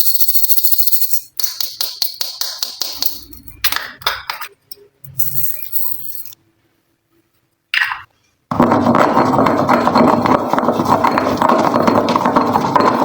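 Slime being squished and mixed by hand, in short clips cut together. First comes a crisp crackling, then rapid clicking squishes, a brief break, and from about two-thirds in a continuous dense, wet, crackling squish.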